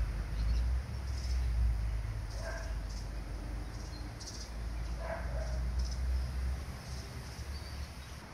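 A White Swiss Shepherd puppy giving two short high whimpers, about two and a half seconds apart, over a low rumble on the microphone and faint repeated high chirps.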